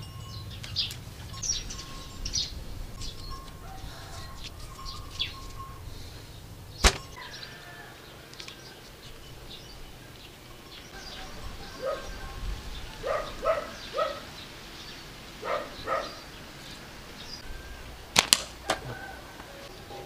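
Homemade slingshot with flat rubber bands being shot: a sharp snap about seven seconds in, and a quick double crack near the end. Birds chirp and call in the background.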